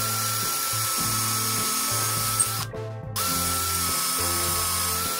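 Cordless drill running at high speed, boring a small hole into a wooden branch: a steady whine that stops briefly about two and a half seconds in, then starts again.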